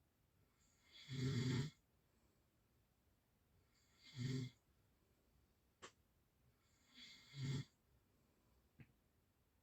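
A sleeping person snoring: three short snores about three seconds apart, with two brief faint clicks between them.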